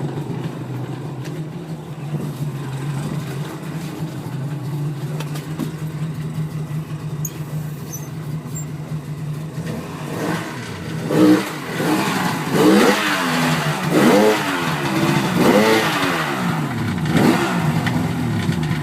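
2002 Yamaha WaveRunner XLT two-stroke engine, just rebuilt with new pistons, running out of the water. It idles steadily, then from about ten seconds in is revved in about six short blips, each rising and falling in pitch.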